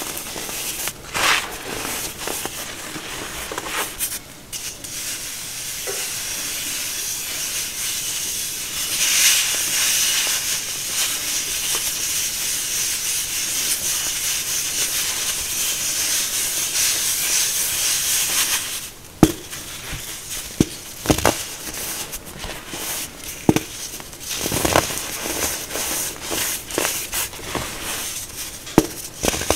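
Baking soda crushed by hand: a long stretch of steady soft hissing crunch, then sharp crackling snaps as a pressed block of baking soda is squeezed and broken apart over the last ten seconds.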